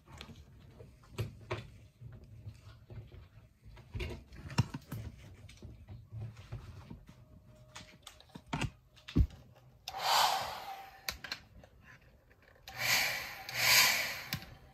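Scattered knocks and clicks of objects being handled and set down, then two hissing bursts of about a second each, the first about ten seconds in.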